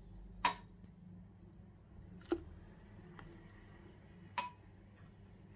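Milk poured into a glass mixing bowl of egg-and-sugar batter, quiet, with four short faint clinks on the glass spread a second or so apart.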